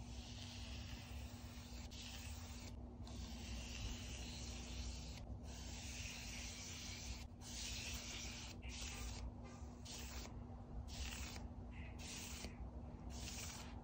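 Foam brush rubbing back and forth as it spreads wood stain over a grooved wooden board: repeated soft, hissing strokes with short breaks between them. A steady low hum runs underneath.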